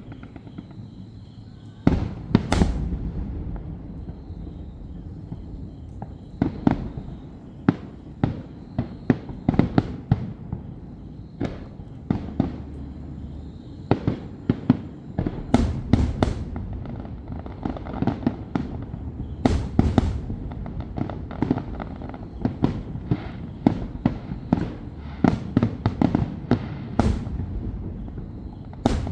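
Fireworks display: shells bursting in an irregular string of sharp bangs over a continuous low rumble, beginning about two seconds in after a quieter start.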